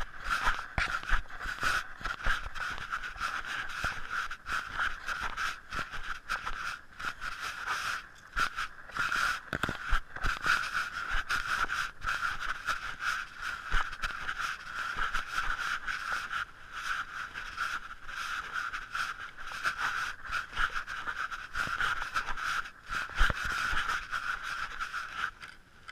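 Continuous scraping and rubbing handling noise on an action camera carried by a walking hiker, with many small scratchy knocks and a steady hiss.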